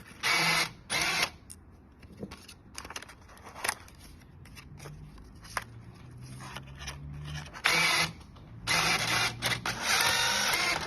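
A vending machine's payment acceptor taking in money: two short noisy bursts at the start, scattered clicks, a low motor hum for a few seconds midway, and a longer noisy stretch near the end.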